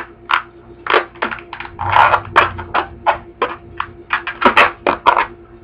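Long inflated latex modelling balloon being gripped and twisted into bubbles by hand: a run of short, irregular rubbery squeaks and rubs, with a longer squeaky twist about two seconds in.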